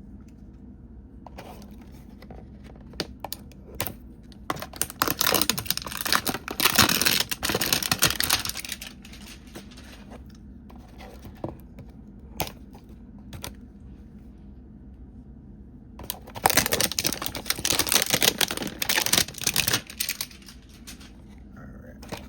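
A trading-card hanger box and its wrapping being torn and crinkled open by hand. The crackling comes in two long spells, the second past the middle, with scattered single clicks and taps between them.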